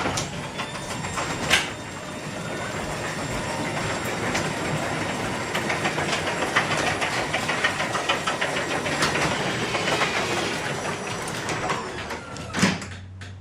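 Genie Silent Max garage door opener moving a sectional garage door, the door's rollers clattering steadily along the tracks. It starts with a click and stops with a clunk near the end.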